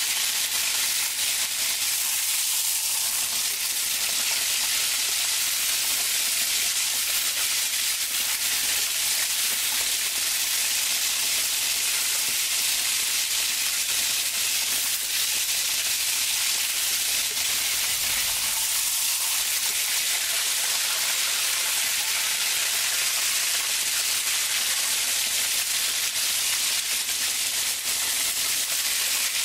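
Pork cutlets frying in hot oil in a pan: a steady, dense sizzle.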